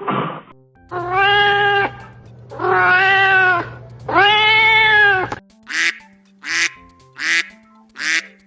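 A cat meowing three times, each meow about a second long. From about halfway through, a duck quacks in short calls, about one a second, over light background music.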